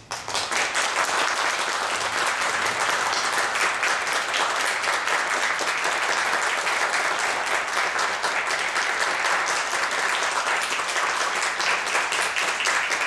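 Audience applauding, breaking out all at once and then holding steady.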